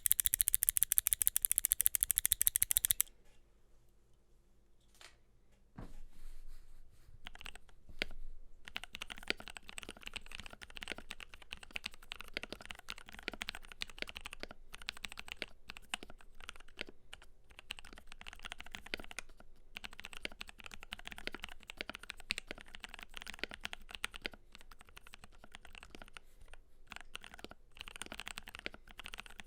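Typing on a Keydous NJ80 mechanical keyboard with a brass plate, lubed Durock Cerulean switches and Cherry-profile PBT keycaps. It opens with about three seconds of much louder, very fast, evenly spaced clicking. A few single keystrokes follow, then steady continuous typing from about eight seconds in.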